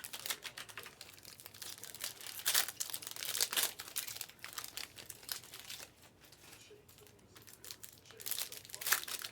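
Crinkling and tearing of plastic trading-card pack wrappers being handled and torn open, in irregular bursts that ease off for a few seconds past the middle and pick up again near the end.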